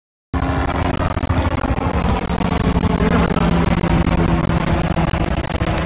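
Helicopter flying overhead: a loud, steady engine and rotor drone that starts abruptly just after the beginning.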